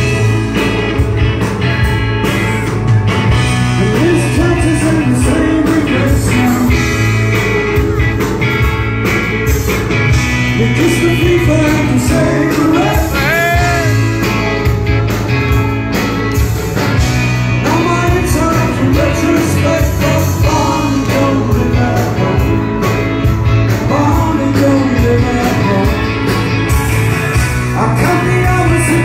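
Live rock band playing loud: a man singing over electric guitar, bass guitar and drums with a steady beat, recorded on a mobile phone.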